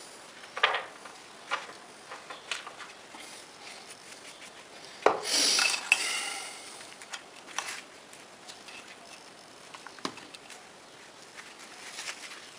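Metal hand tools clinking and knocking on a steel plate as a tap wrench and tap are picked up and set down, with a short scraping rub about five seconds in.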